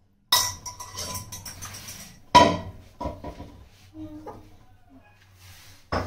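Steel and ceramic kitchenware being handled at a sink. A stainless steel vessel clatters about a third of a second in and rings on briefly. A louder knock comes at about two and a half seconds, then several lighter clinks and knocks, with another knock near the end.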